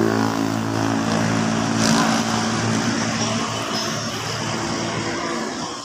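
A motor vehicle's engine running with a steady hum that fades away near the end.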